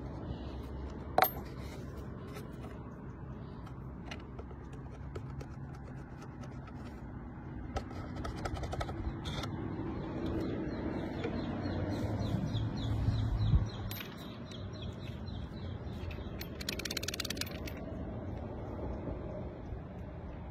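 Small clicks and scrapes from a plastic bottle and a metal padlock being handled, over a steady low background rumble, with one sharp click about a second in.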